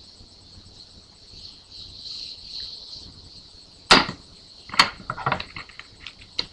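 Faint high fizzing hiss of a baking soda and vinegar volcano foaming over, then a sharp knock about four seconds in and a quick run of clicks and knocks as a metal spoon and a plastic container are handled on a wooden table.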